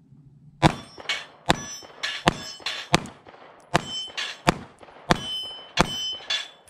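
Taurus GX4 9mm micro-compact pistol fired rapidly, about a dozen shots roughly two a second, some followed by the high ring of steel plates being hit and knocked down.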